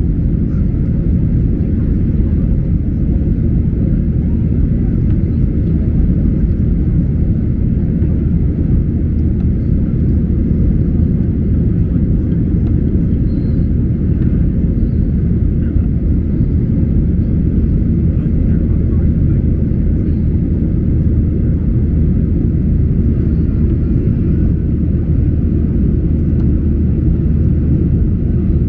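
Boeing 737 cabin noise during the climb after takeoff: the jet engines and the rush of air past the fuselage, heard from inside as a steady, low drone.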